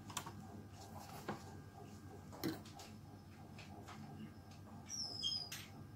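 Faint handling noise: a cloth wiping around the metal rotary hook and bobbin case of a sewing machine, with scattered small clicks, one sharper click about halfway through and a short high squeak near the end.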